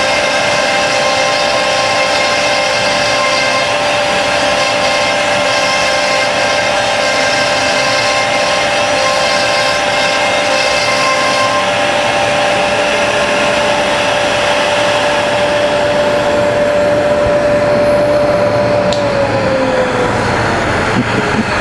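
CNC router spindle running with a steady high whine while its bit cuts slots through white-faced particleboard. The higher cutting sound stops about halfway through. Near the end the whine drops in pitch and fades.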